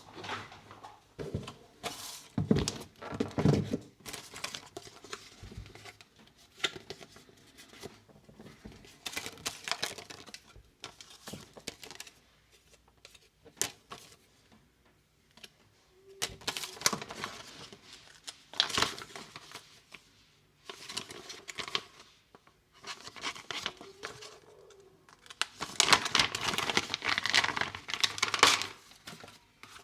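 Packaging being unwrapped and handled: paper or plastic crinkling and tearing in irregular bursts, with short pauses between them and a longer, busier stretch of crinkling near the end.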